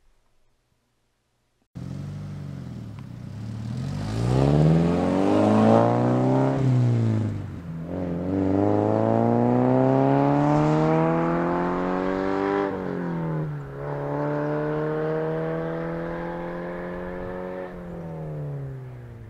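Car engine accelerating hard through the gears, starting suddenly about two seconds in: its note climbs, drops back at each of two upshifts, climbs again, then eases off near the end.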